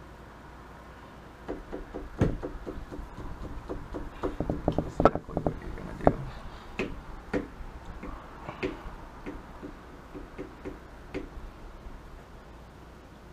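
Plastic game pieces and tokens being handled on a tabletop: a run of light clicks and knocks, densest and loudest about four to six seconds in, then thinning out.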